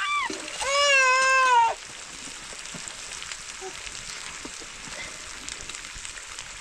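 A baby cries loudly in wails through the first two seconds, the last one about a second long. Then food frying in the cooking pot sizzles steadily, with faint ticks.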